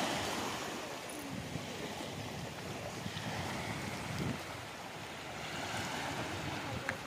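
Small sea waves washing in over shell-strewn sand at the water's edge, swelling a little near the start and again about six seconds in.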